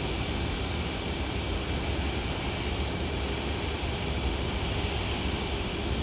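Distant jet engines of a Boeing 767-200 freighter running as a steady rush with a faint high whine on top as it lines up and starts its takeoff.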